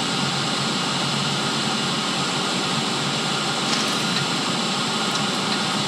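Steady drone of a C-130's four Allison T56 turboprop engines and rushing air, heard inside the flight deck during the landing flare just above the runway.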